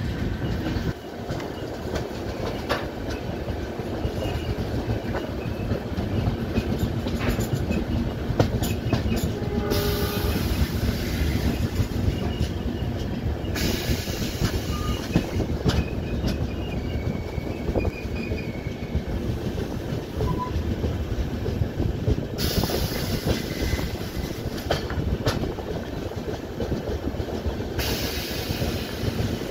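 Passenger train running along the track, heard from on board: a steady rumble with the clickety-clack of wheels over rail joints and stretches of louder hiss now and then.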